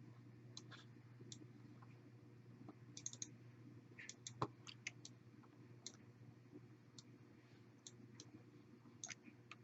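Faint computer mouse clicks, scattered and irregular, over a low steady hum.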